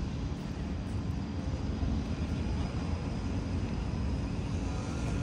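Steady low outdoor rumble with a faint hiss above it, unbroken and without distinct events.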